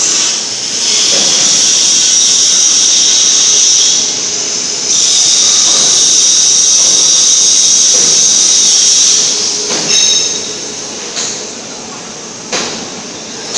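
Loud steady air hiss from the pneumatic H-beam welding machine, dropping out briefly twice and stopping about nine seconds in, followed by a few sharp clicks and knocks.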